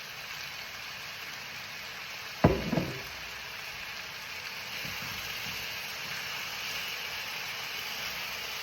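Vegetable stir fry sizzling in a hot pan, a steady hiss. A sharp knock comes about two and a half seconds in, with a couple of smaller knocks after it. The sizzle grows a little louder about five seconds in.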